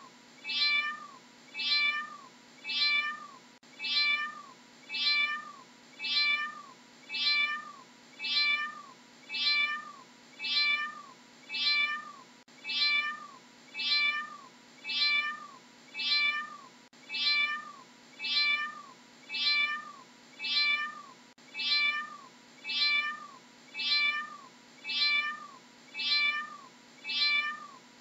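Cat meowing in short, identical calls repeated at a steady pace of well over one a second, each meow dropping in pitch at its end.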